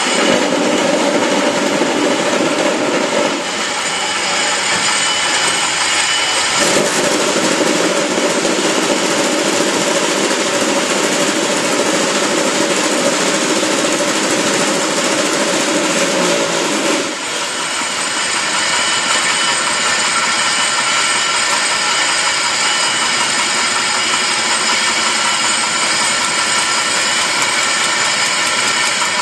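Concrete block making machine running with a loud, steady mechanical din. A deeper hum comes in at the start for about three seconds, drops out, and returns for about ten seconds before stopping again.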